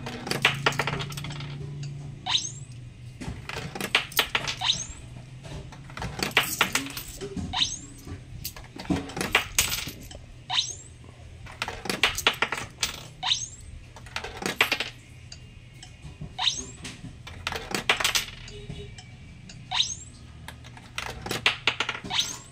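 Coins being fed one at a time into the coin acceptor of an e-loading vending machine, each one clinking and clattering through the mechanism with sharp metallic clicks about every second or so. Each coin is accepted. A low steady hum runs underneath.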